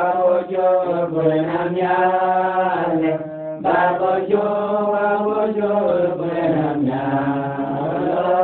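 Voices singing a slow chant in long, held notes over a low sustained tone, with a short break about three and a half seconds in.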